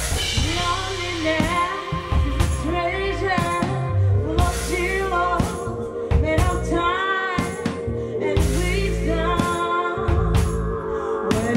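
Live band music: a woman sings a melismatic vocal line into a microphone over heavy electric bass, a drum kit and a keyboard holding a sustained tone.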